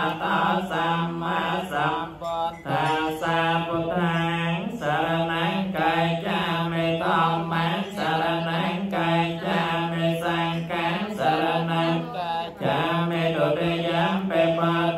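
Theravada Buddhist paritta chanting in Pali: voices reciting together on a steady low reciting tone, in long phrases with brief pauses between them.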